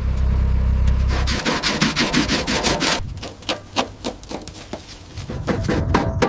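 Quick back-and-forth rubbing strokes on a surface, about six a second, that become sparser and irregular after about three seconds. A low hum underneath stops about a second and a half in.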